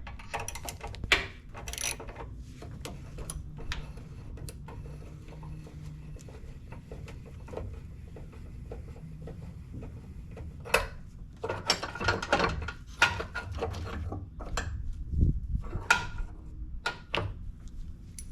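Irregular clicks, clinks and knocks of hand tools on metal, a ratchet among them, as the truck's battery is being disconnected and unbolted.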